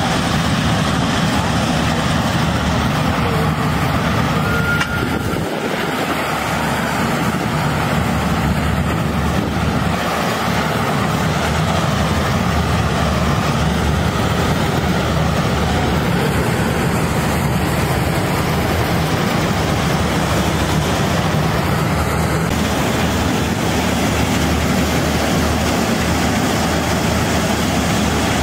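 Channy 930 combine harvester running steadily under load while it cuts and threshes ripe paddy: a constant engine drone with dense mechanical noise over it, unbroken throughout.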